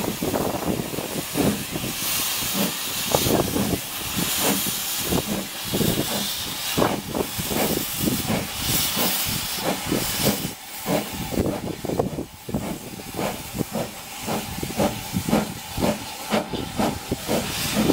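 Small saddle-tank steam locomotive pulling away with its train: loud hissing steam, strongest in the first half, over a steady run of exhaust chuffs, two to three a second.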